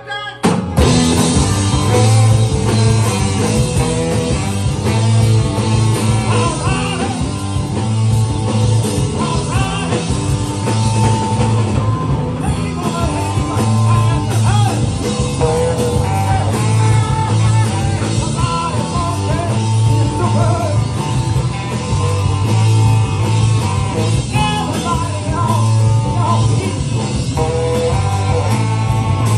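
Live rock band kicking in about half a second in and playing a song: electric guitars, bass and drum kit with a lead singer.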